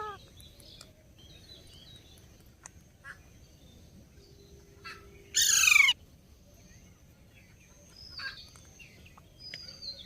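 An Indian ringneck parrot gives one short, loud, harsh call about five seconds in, made of quick repeated falling notes. A few faint, high, short chirps follow near the end.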